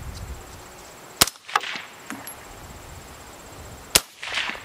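Two rifle shots from an AR-style rifle with an 18-inch upper firing 5.56 NATO 70-grain TMK rounds, about three seconds apart, each a sharp crack followed within half a second by a fainter, shorter sound.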